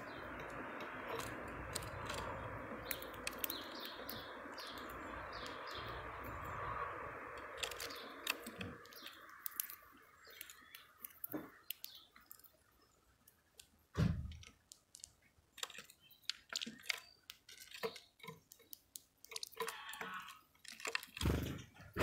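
Small wild birds at a feeder: many quick pecking taps and clicks on seed, with a few chirps. A steady background noise runs underneath and stops about nine seconds in. Two duller thumps come, one in the middle and one near the end.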